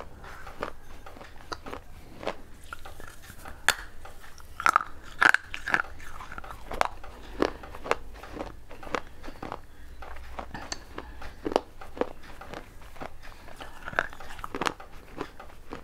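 A person biting and chewing pieces of an unglazed clay pot, with sharp, irregular crunches and cracks of the fired clay breaking between the teeth, loudest about five seconds in.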